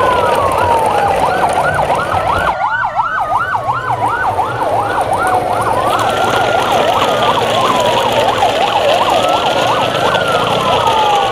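Siren wailing, its pitch rising and falling slowly. For a few seconds, starting about two and a half seconds in, it switches to a rapid yelp of about four cycles a second, and a second wail overlaps it near the end.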